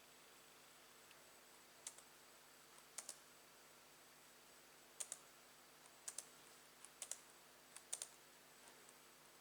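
Sparse sharp clicks, most of them in quick pairs, about six over several seconds against a faint hiss, like keys or buttons being pressed and released.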